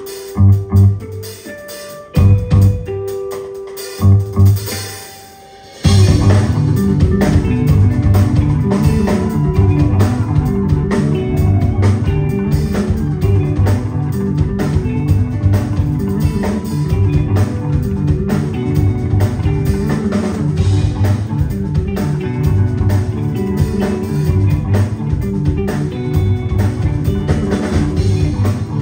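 Live rock band playing electric bass, electric guitar and drum kit. For the first few seconds there are separate loud hits with gaps between them and a rising swell. About six seconds in the full band comes in and plays steadily on.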